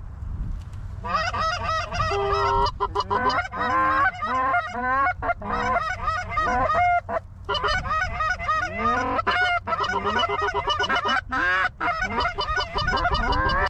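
Canada goose honking and clucking: many rapid, overlapping, loud calls starting about a second in and running on without a break.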